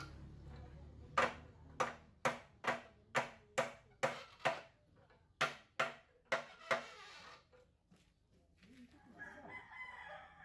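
About a dozen sharp knocks, roughly two a second, each ringing briefly, then they stop. Near the end a rooster crows.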